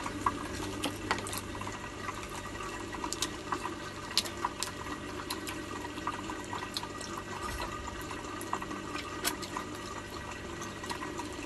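Crab shell being cracked and picked apart by hand and the meat eaten: irregular sharp clicks and crackles. Under them runs a steady trickle of water from an aquarium filter.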